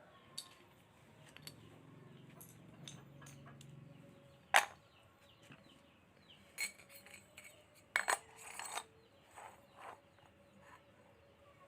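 Scattered light clicks, taps and clinks of small hard objects being handled, with sharper knocks about a third of the way in and a quick cluster of them about two thirds of the way in.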